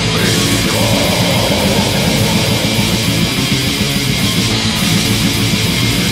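Heavy metal recording: loud, distorted electric guitars in a dense, unbroken wall of sound.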